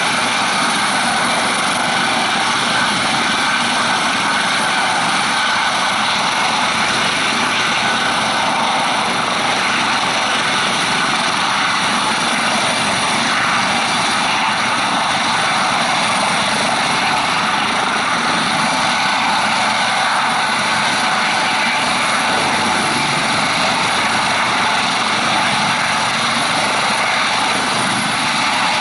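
Eurocopter AS565K2 Panther twin-turbine helicopter running steadily: turbine whine over the rotor noise, with no change in pitch or level.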